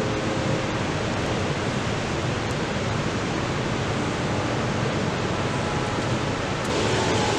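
Steady, even rushing noise with no distinct events, growing slightly brighter near the end.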